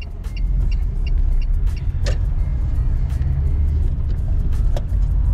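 Steady low rumble of a car driving, heard from inside the cabin, with music playing over it and a few light clicks.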